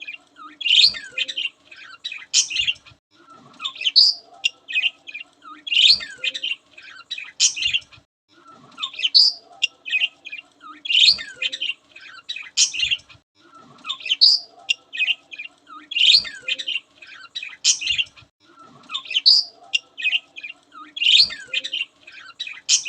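Pet budgerigars chirping and chattering in quick high squeaks and trills, coming in clusters about every 1.7 seconds in a very regular rhythm, over a faint steady hum.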